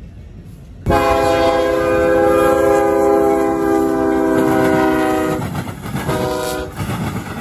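Diesel locomotive horn sounding one long blast that starts abruptly about a second in and lasts about four seconds, then two short blasts. Train wheels rumble on the rails underneath.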